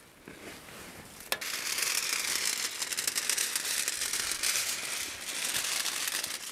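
Plastic stretch film being handled or pulled off its roll: after a single click, a continuous crinkling, crackling rustle starts about a second and a half in and keeps on.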